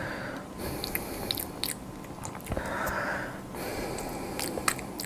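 Close-miked mouth sounds of someone tasting a drink: soft lip smacks and tongue clicks, with a breath near the middle.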